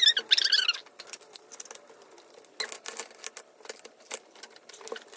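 Wooden perpetual-calendar mechanism being turned by hand: a squeak of wood rubbing on wood near the start, then a run of light clicks and knocks from the wooden tumblers and drive parts.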